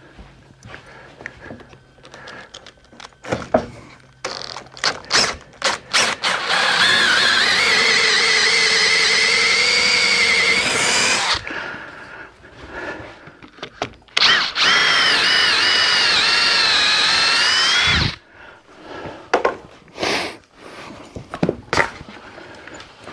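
Cordless drill boring dowel holes through a guide block into the end of a wooden board, in two runs of about four to five seconds each, its whine wavering in pitch under load. Knocks and clatter of the drill and board being handled come before, between and after the runs.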